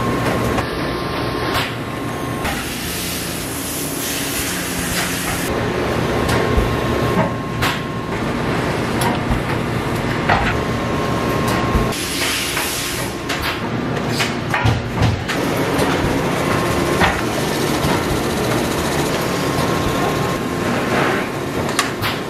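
Food-packaging machinery running in a meat-patty factory: a steady mechanical hum with a faint constant whine, broken by irregular clacks and knocks of machine parts and trays.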